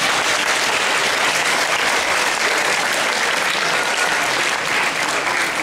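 An assembly audience of students applauding: dense, steady clapping.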